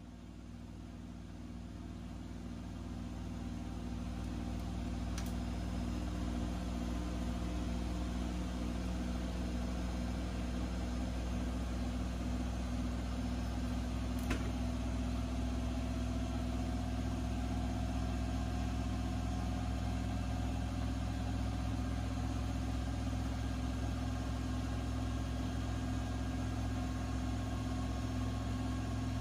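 Steady hum of an electric motor. It swells over the first four seconds and then holds even, with two faint clicks about five and fourteen seconds in.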